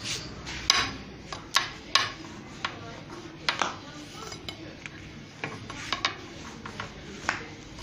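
Long thin wooden rolling pin clicking and knocking on a floured countertop as a thin sheet of börek dough is rolled out, in a dozen or so irregular sharp taps.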